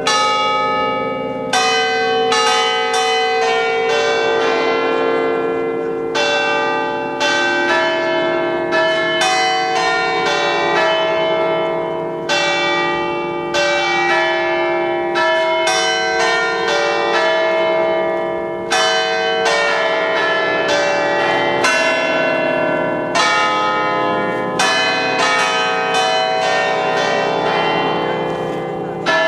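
Church bells of a concert of eight bells in C, cast by Pasquale Mazzola in 1879, struck one after another to play a Christmas tune. The strokes come about once or twice a second, each one ringing on over the lingering hum of the others.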